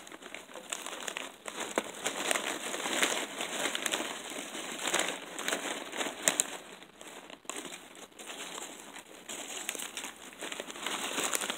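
Plastic potato-chip bag crinkling irregularly as it is handled and opened, with sharp crackles throughout.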